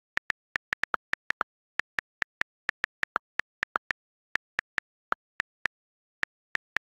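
iPad on-screen keyboard clicks as text is typed, a rapid, uneven run of short, sharp ticks at about four or five a second, some a little lower in pitch than the rest, with dead silence between them.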